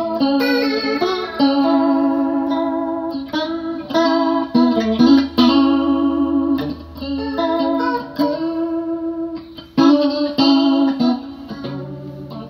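Electric guitar, a Fender Stratocaster, played through a Danelectro Money Laundry rotary-speaker emulator pedal: a run of picked chords and notes that change every second or so, coloured by the pedal's Leslie-style spinning-speaker effect.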